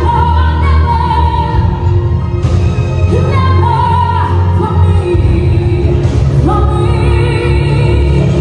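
A woman singing live into a microphone, with held, gliding notes over a musical accompaniment heard through the PA.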